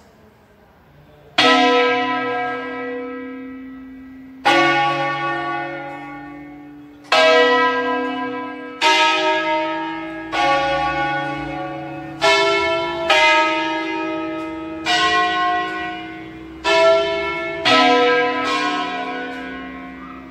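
Church bells from a five-bell peal in B, swung mouth-up in the belfry and rung in concert. About ten single strokes come at an uneven, unhurried pace on bells of different pitch, each ringing out and fading before the next.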